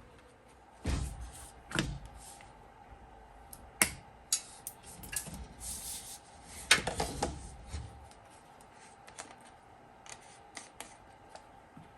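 Scattered clicks, knocks and rubbing of hand work with tools and parts, the loudest knocks about a second in, at two, at four and near seven seconds, over a faint steady hum.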